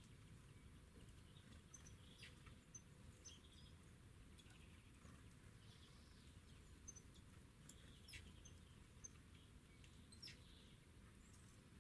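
Faint, scattered short chirps and high calls of small songbirds, a few every second or two, over a steady low background rumble.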